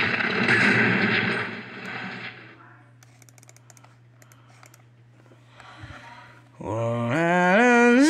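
Closing-credits music played through computer speakers ends about two and a half seconds in, leaving a faint low hum with a few light clicks. Near the end a new tune starts, stepping up in pitch, the opening of a production-company logo jingle.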